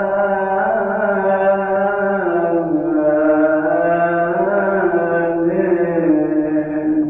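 Coptic liturgical chanting: one long melismatic phrase with held notes that bend slowly in pitch, breaking off near the end.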